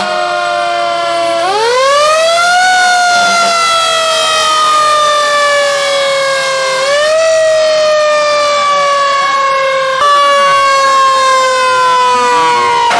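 Fire engine sirens wailing as the fire trucks pass, loud. The pitch climbs quickly about a second and a half in and again about seven seconds in, and sinks slowly in between; about ten seconds in, another siren tone cuts in.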